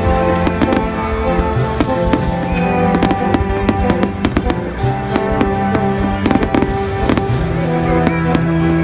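Aerial fireworks bursting and crackling, a dense run of sharp cracks several times a second, over loud music with held notes.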